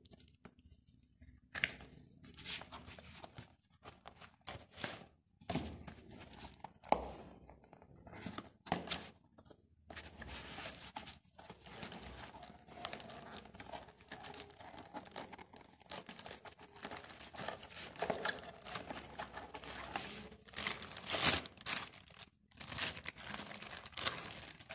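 Cardboard product box being opened by hand, its flaps and cardboard insert scraping and rustling, then a chrome shower body jet being pulled out of its plastic bag with crinkling. The handling comes as irregular scrapes and crackles, busiest and loudest near the end.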